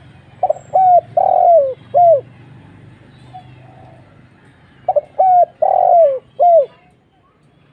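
Spotted dove cooing: two phrases of four or five short, deep notes, the third drawn out and falling at its end, about four seconds apart. A fainter dove coos between the phrases.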